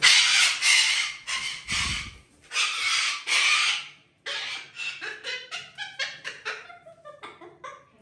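Parrots calling: a run of about six harsh, loud screeches over the first four seconds, then, after a brief break, quieter rapid chattering calls.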